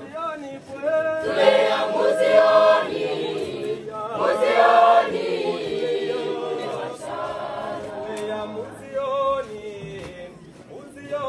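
A secondary school student choir singing together as a group.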